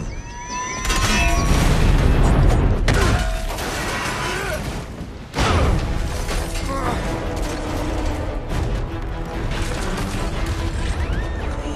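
Action-film soundtrack: music mixed with deep rumbling, booms and crashing debris. A heavy rumble builds about a second in, and a sudden loud crash comes about five seconds in.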